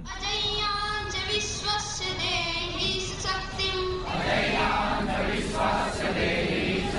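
A group of voices singing together in slow, sustained notes; about four seconds in the sound grows fuller and denser.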